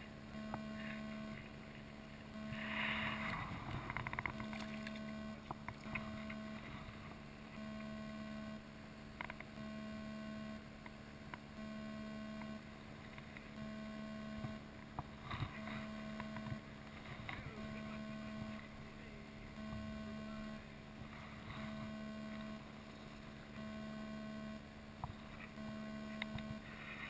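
Shallow stream running over rocks, with a few light clicks and a louder patch of noise about three seconds in, under an electrical hum that pulses on and off about every two seconds.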